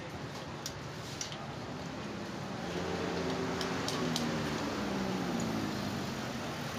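A few light metallic clicks of a hand tool working on the motorcycle's engine cover bolts, over steady background noise. A louder humming drone swells and fades again through the middle.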